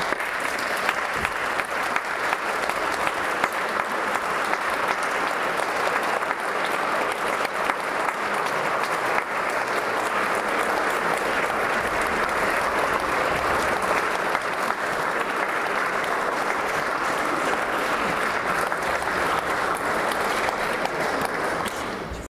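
Audience applauding: dense, steady clapping that holds evenly throughout and drops away near the end.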